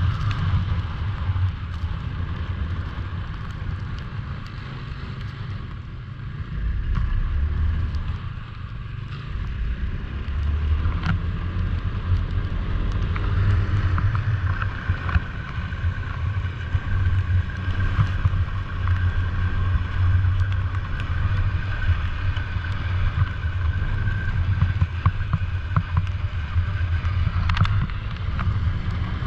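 Snowmobile engine running steadily under way, heard from on the sled, with a steady higher whine that grows stronger about halfway through.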